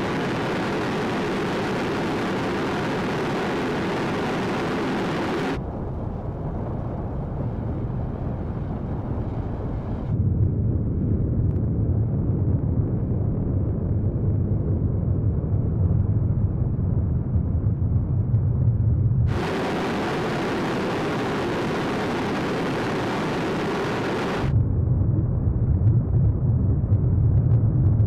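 Solid rocket motor firing on a horizontal static test stand, a continuous exhaust roar. It switches between a bright, even, hissing roar and a deeper, rougher rumble, changing at about 6 s, 10 s, 19 s and 24 s.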